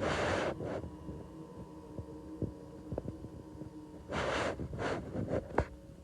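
Robot vacuum running: a steady motor hum with a few sharp clicks and knocks, and two short hissing rushes, one at the start and one about four seconds in.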